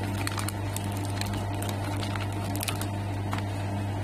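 High-frequency welding machine humming steadily at idle, a low electrical hum with fainter overtones, with scattered light clicks and taps from handling.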